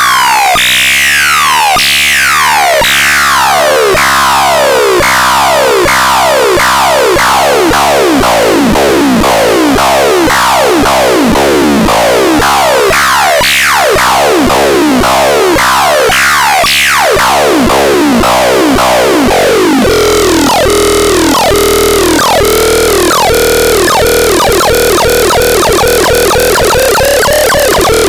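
Electronic sound generator, the EDEX being demonstrated, producing buzzy synthesized tones: a quick series of falling pitch sweeps, about two a second. About twenty seconds in, it switches to a fast warbling, siren-like tone.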